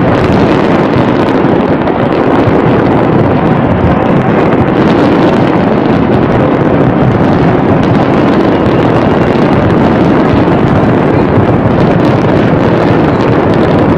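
Massed fireworks barrage: many bursts and crackles merging into a steady, loud din, with no single bang standing out.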